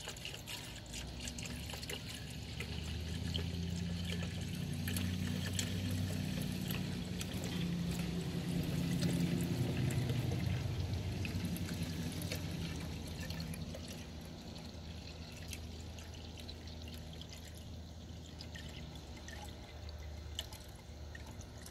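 Antifreeze coolant poured in a steady stream from a plastic jug into a low, near-empty coolant expansion tank, splashing and trickling into the reservoir. The pour grows louder over the first few seconds and turns quieter from about halfway on.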